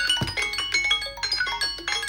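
Samsung Galaxy alarm tone playing: a busy, bright melody of quick mallet-like chiming notes, with a low falling swoop about a quarter second in.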